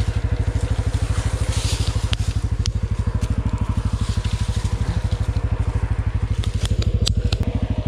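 CFMoto CForce 450L ATV's single-cylinder engine running at low revs in a steady, even pulse. A few sharp snaps and clicks cut through it, mostly about seven seconds in.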